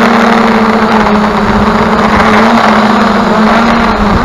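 Multirotor drone's 2212 920KV brushless motors and 9-inch propellers, heard from the onboard camera: a loud, steady hum whose pitch wavers slightly, mixed with rushing wind.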